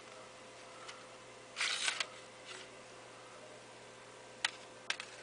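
Plastic CD cases being handled: a short scraping rustle about one and a half seconds in, then a few sharp plastic clicks near the end.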